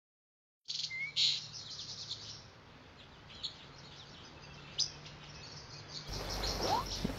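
Birds chirping and tweeting in short high calls over a faint low steady hum, starting just under a second in after dead silence; a fuller, louder ambience with more calls comes in about six seconds in.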